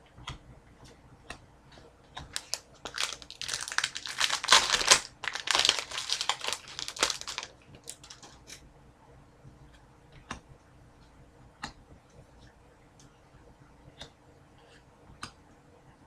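Foil wrapper of an Upper Deck hockey card pack crinkling and tearing for about five seconds, from about two seconds in, as the pack is opened. Before and after it come scattered soft clicks of cards being handled.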